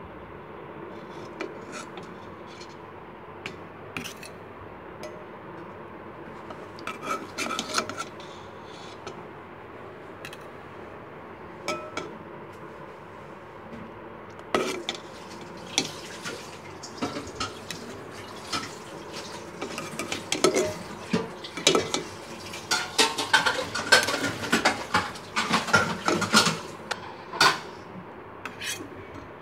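A spatula clinking and scraping against the pan as syrup-soaked palm fritters (taler pitha) are lifted out. A few scattered clicks come at first, then frequent clatter through the second half.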